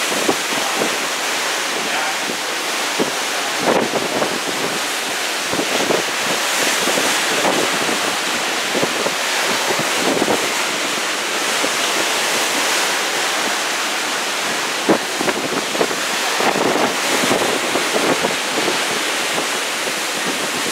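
Rough sea churning and breaking white along a cruise ship's hull, a steady rush of water. Wind buffets the microphone in brief gusts now and then.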